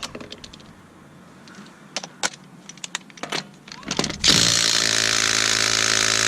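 Impact wrench running in one steady hammering burst of about three seconds, starting about four seconds in, most likely spinning off a wheel lug nut. Before it come a few clinks and rattles of tools.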